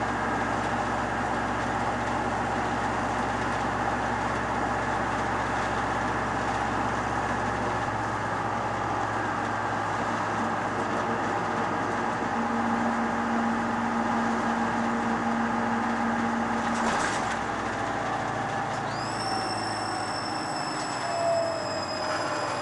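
Diesel truck engine running steadily, its low rumble thinning about a third of the way in. A steady hum sounds in the middle, then a click. Near the end a high whistle sets in and slowly falls in pitch.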